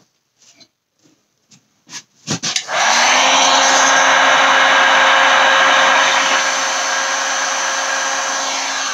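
A few faint clicks, then a heat gun switches on about two and a half seconds in and runs with a steady blowing whir and a faint hum. It is blowing hot air over the wet epoxy resin pour to move it and pop bubbles, and gets a little quieter over the last few seconds.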